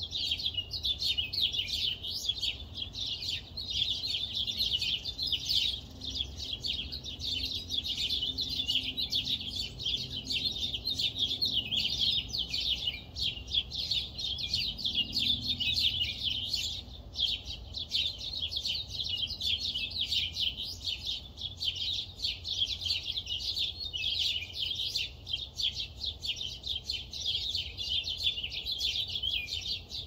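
A dense dawn chorus of many birds chirping and twittering all at once, a continuous loud chatter with no gaps. A low steady rumble runs underneath.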